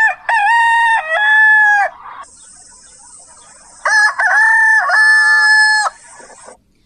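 A rooster crowing twice, each crow lasting one and a half to two seconds, with a steady high hiss between the two crows.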